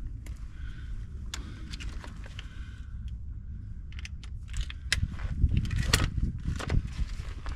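Scattered metallic clinks and taps of hand tools and sockets while working on the track bar bracket bolts, more frequent in the second half, over a steady low rumble.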